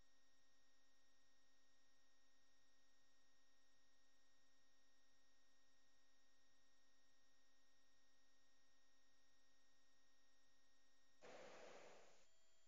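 Near silence: a faint steady electrical hum, with a brief soft hiss near the end.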